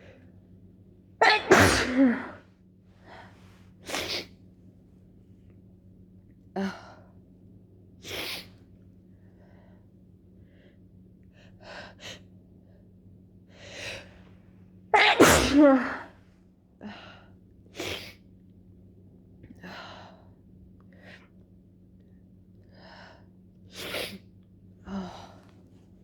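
Two loud, wet, snotty human sneezes, about a second in and again at about fifteen seconds, from a person in the last stages of a cold. Several shorter, quieter sounds come between them.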